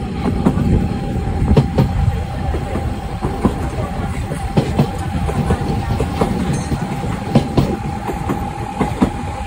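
Narrow-gauge passenger train running, heard from a carriage window: a steady rumble with irregular clicks and knocks from the wheels over the track, and a thin steady whine held above it.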